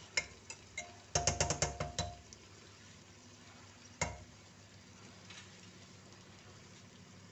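Metal spatula scraping and knocking against a pressure cooker pot while stirring a thick chicken and tomato masala. About a second in comes a quick run of strikes that sets the pot ringing, then a single knock around four seconds, with faint sizzling underneath.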